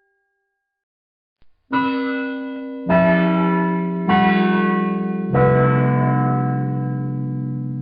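After about a second and a half of silence, a set of bells is struck four times about a second apart. Each stroke is at a different, mostly lower pitch, and the notes ring on and overlap as they slowly fade.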